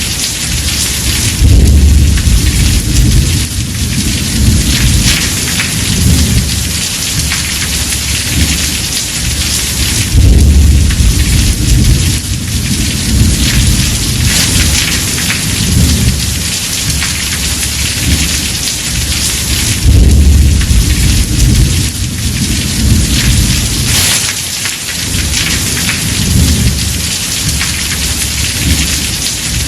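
Heavy rain falling on a house roof, a steady dense hiss, with thunder rumbling low underneath. The rumbles swell about every ten seconds, loudest about 2, 10 and 20 seconds in.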